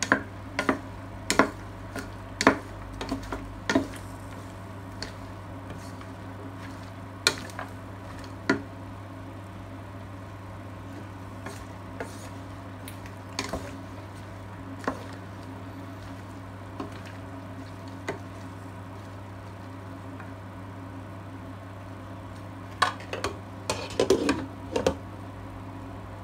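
Kitchen clatter from pans and utensils on a cooktop: scattered sharp clicks and knocks over a steady low hum, with a quick run of clattering near the end.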